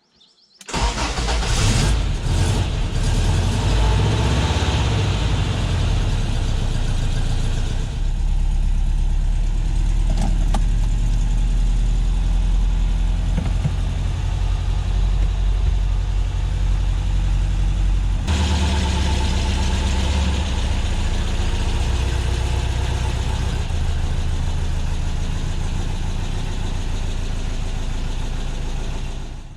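Porsche 356C's air-cooled flat-four engine running, a steady low drone that comes in suddenly just under a second in and changes abruptly about eighteen seconds in.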